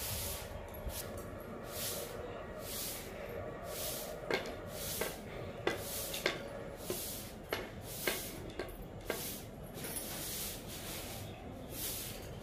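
Broom sweeping a bare cement floor: rhythmic swishing strokes, about one a second, with a few light knocks in between.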